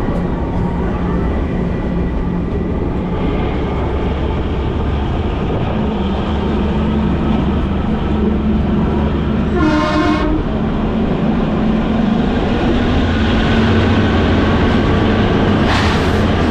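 Kalka–Shimla narrow-gauge toy train running along the track with a steady rumble of wheels on rails. About ten seconds in a short horn blast sounds, lasting under a second.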